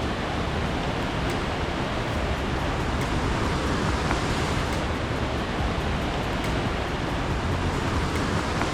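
A river rapid and waterfall rushing: a steady, even wash of water noise with a deep rumble underneath.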